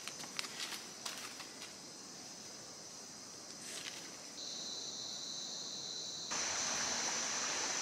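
Steady high-pitched insect chorus with a few light snaps and rustles from hands picking among leaves in the first two seconds. About six seconds in, the rush of a shallow stream flowing over stones comes in, louder, under the insects.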